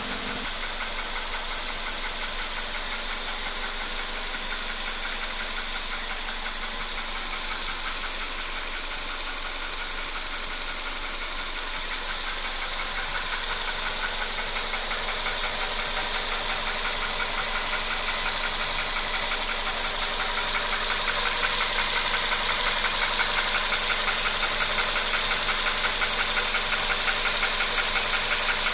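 Volkswagen Polo Sedan engine running with a rapid, even knocking, the knock that has appeared in the engine at 28,000 km. It grows louder about halfway through and again about two-thirds in.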